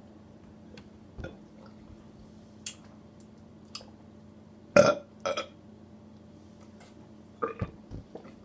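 Person burping: one loud burp about five seconds in, a shorter one right after it, then a few smaller burps near the end, brought up by drinking soda.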